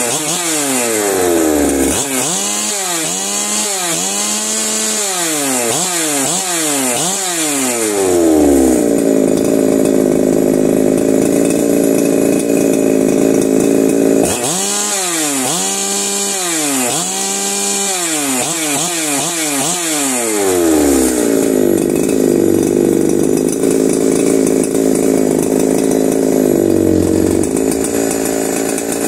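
Ported Holzfforma G372XP two-stroke chainsaw running unloaded. It drops back to idle, is blipped up and down with the throttle about half a dozen times, idles steadily for several seconds, is blipped again four or five times, then settles back to a steady idle.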